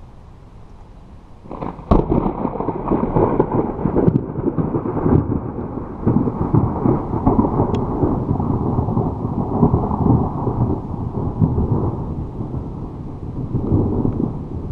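Thunder: a sharp crack about two seconds in, then a long rolling rumble that swells and fades several times.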